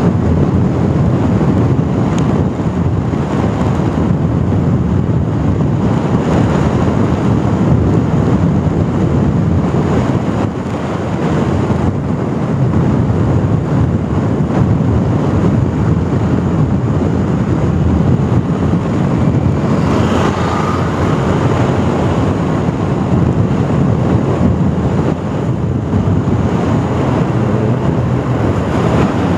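Steady rush of wind on the microphone over a motorcycle's engine and road noise while cruising on a highway at about 66 km/h.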